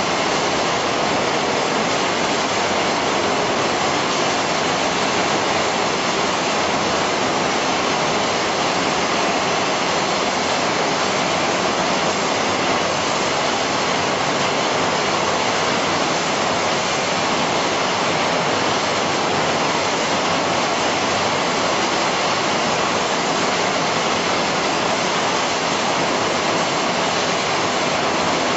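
Steady, unbroken noise of poultry slaughter-line machinery running, with no distinct strokes or rhythm.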